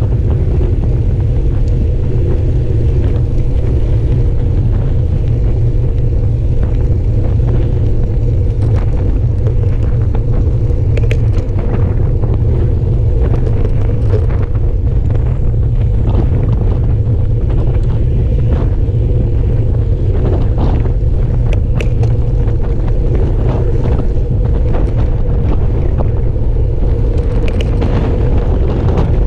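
Wind buffeting the microphone of a bike-mounted camera while riding a road bike at speed, a loud steady low rumble mixed with tyre and road noise. A few faint clicks are scattered through it.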